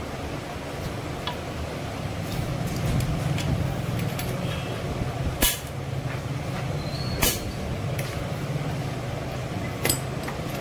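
Hand tools clicking and clinking against metal at a bearing in a motorcycle's aluminium engine crankcase: several sharp clinks, the loudest a little past the middle and again near the end. A steady low hum runs underneath.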